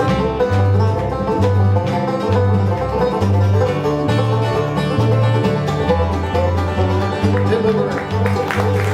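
Bluegrass band playing an instrumental break: five-string banjo picking over guitar, mandolin and a bass line walking in steady steps.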